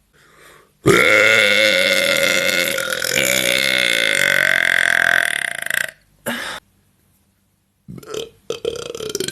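A woman's long, loud burp lasting about five seconds, starting about a second in.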